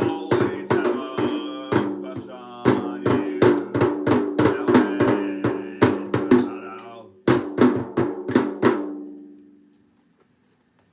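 Drum kit played in a fast, busy pattern of snare and bass drum hits with ringing tones underneath. It ends with a few final strikes that ring out and fade to quiet.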